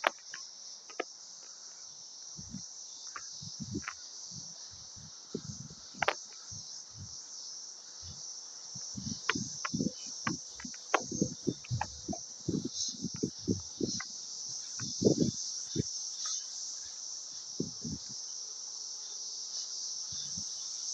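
Steady high-pitched, continuous buzzing of a cicada chorus, a little louder in the second half, with scattered short low thumps and a few sharp clicks.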